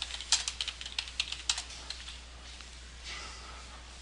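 Typing on a computer keyboard: a quick run of about nine keystrokes in the first second and a half, then the keys fall quiet.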